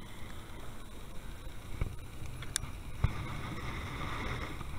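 Low, steady outdoor background noise with a few light clicks and knocks, about two to three seconds in.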